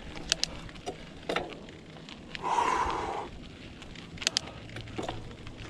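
Mountain bike on a rough forest track: scattered small clicks and crackles from the tyres and bike over stones, with one louder breathy rush, the rider's exhale, about two and a half seconds in.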